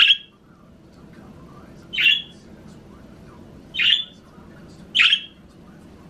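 Budgerigar giving four short, loud, harsh calls, one every second or two.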